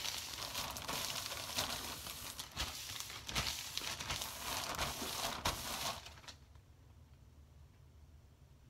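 Thin clear plastic bag crinkling and rustling as it is pressed around and pulled off a man's head over freshly brushed hair. It stops about six seconds in.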